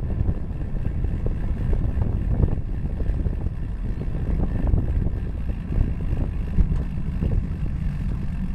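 Wind buffeting the microphone of a bicycle-mounted camera, with tyre and road rumble, as the bicycle coasts. The rumble is low and steady, with a few light irregular knocks.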